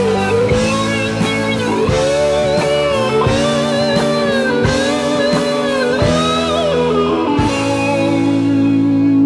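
Rock music with a prominent guitar, its melody sliding and bending between notes over sustained chords.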